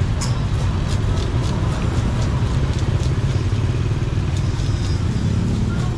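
Steady low engine rumble of motorbike traffic, with light clicks and clatter now and then.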